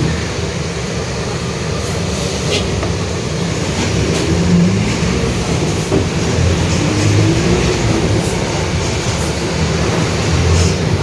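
Mercedes-Benz OF-1721 BlueTec 5 city bus under way, heard on board: a steady low engine and road rumble with light rattles and a faint wavering whine midway. The whine fits the growling differential ('diferencial roncando') that the uploader notes.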